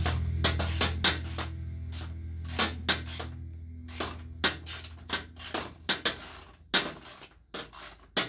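Irregular clicks and clinks of small hard parts being handled and fitted by hand, some sharp and some softer, at uneven spacing.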